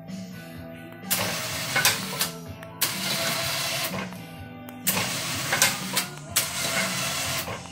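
An electric ATV winch motor running in several short bursts of about a second each as it works the plow's lift cable, over soft background music.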